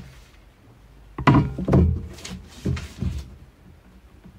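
A long wooden ruler being picked up and laid down on a paper-covered drafting table: about five knocks and thuds in quick succession, some with a short wooden ring.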